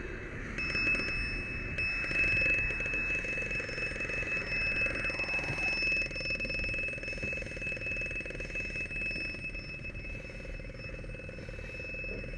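Steady high-pitched electronic alarm tone that starts about half a second in, drops out briefly, then holds on. A broad hiss sits under it and fades about halfway through.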